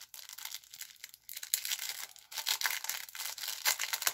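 Packaging crinkling and rustling in the hands as a pair of earrings is unwrapped: a dense run of sharp, irregular crackles.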